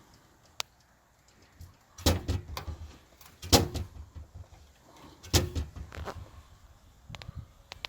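Three heavy knocks, each about a second and a half apart, the middle one the loudest, with lighter clicks and rattles between them and a few small clicks near the end.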